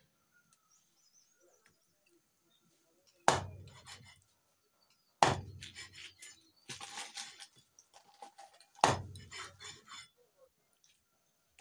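Raw beef being chopped with a large heavy knife on a wooden chopping stump: three loud chops, the first about three seconds in, with lighter knocks and taps of the blade between them.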